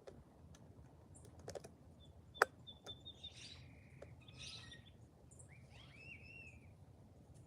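Faint wild birds calling at a feeder: a few short chirps and a thin whistled note in the second half, over a steady low background hum. Several sharp clicks or taps come through, the loudest a little over two seconds in.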